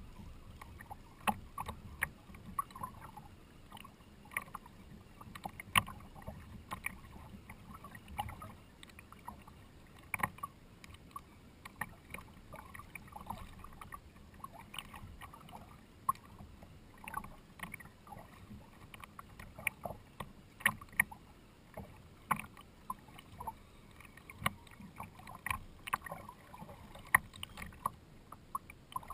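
Choppy water slapping and lapping against a kayak's hull in irregular sharp knocks, over a low steady rumble.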